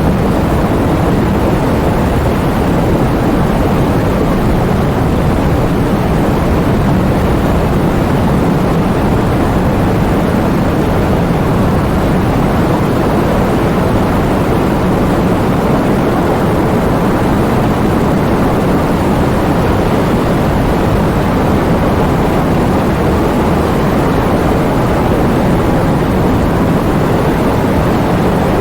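Heavy thunderstorm rain: a loud, steady, deep rushing noise of downpour with low rumbling, unchanging throughout and without distinct thunder cracks.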